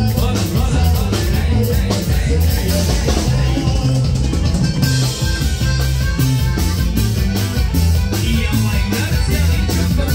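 Live norteño-style band playing dance music: accordion, guitars and a drum kit keeping a steady beat, with a prominent bass line.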